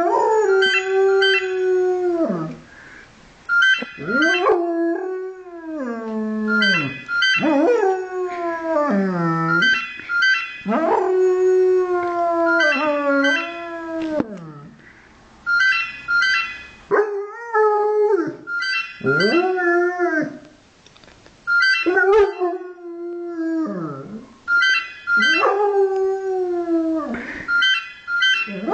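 German Shepherd puppy howling along to a mobile phone ringtone: a string of long howls, each a couple of seconds long, held steady and then sliding down at the end. Between and over them the ringtone plays repeated quick runs of short, high electronic beeps.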